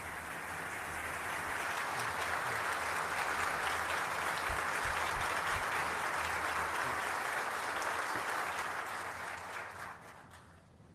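Large assembly applauding: steady, dense clapping from a full parliamentary chamber that dies away about ten seconds in.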